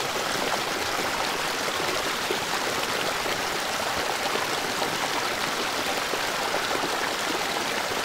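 Shallow mountain creek running steadily over stones and gravel.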